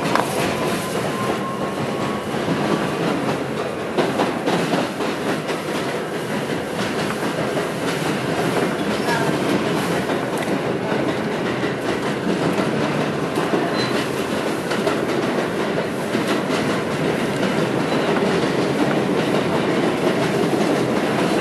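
New York City subway train (F local) running between stations, heard from inside the car: a steady rumble of wheels on rail with clicks over rail joints, getting gradually louder.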